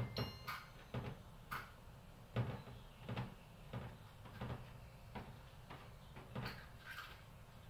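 Soft, irregular knocks as small balls of bread dough are set down one by one on a metal baking tray and hands touch the tray, about eight in all.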